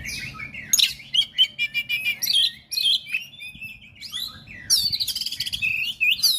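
Oriental magpie-robin (kacer) singing a fast, varied song of sharp chirps and whistled glides. About three-quarters of the way through it breaks into a long, rapid trill.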